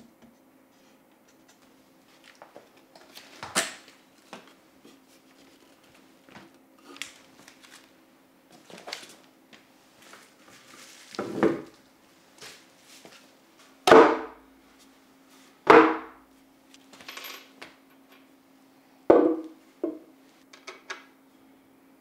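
Flat-pack kitchen cart being assembled: wooden and metal parts and packaging handled, with scattered knocks and clatters. The three loudest knocks fall in the second half, about two to three seconds apart, over a faint steady hum.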